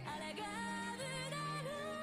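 Background pop song: a sung melody with a wavering vibrato over held bass notes.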